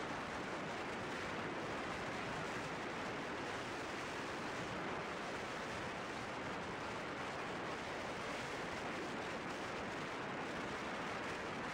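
Steady rush of wind over the microphone of a motorcycle cruising at about 100 km/h, with no engine note standing out from the noise.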